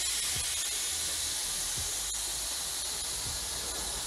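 Compressed air hissing steadily from a pneumatic cartridge (caulking) gun as it presses out adhesive.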